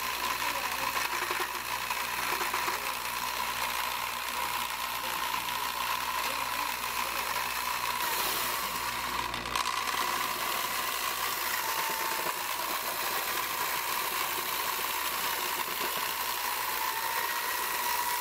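Electric drill with a mixing paddle running steadily, stirring a green flour mixture in a plastic bucket; its motor gives a steady whine that dips slightly in pitch now and then.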